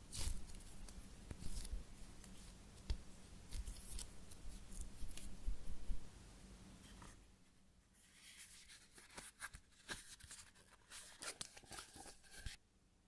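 Hands squeezing and handling a Peko-chan cup-ice squishy toy: a run of crackles and clicks with soft low thumps for the first six seconds, then fainter, sparser clicks.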